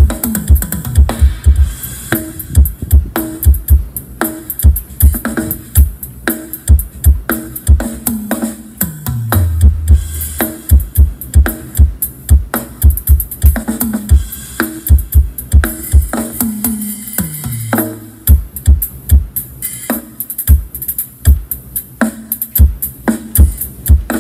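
Dance music with a heavy drum-machine kick and deep bass, played loud through a 15-inch JB15 subwoofer cabinet and column speaker in a subwoofer test. The bass slides down in pitch twice, about nine and seventeen seconds in.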